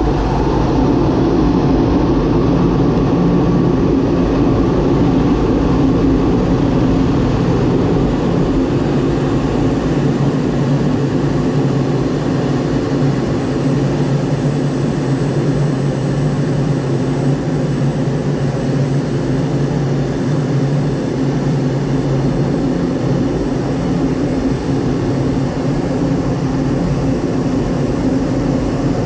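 Eurofighter Typhoon's twin EJ200 jet engines heard from inside the cockpit: a loud, steady rush of engine and airflow noise with a low hum and a faint high whine.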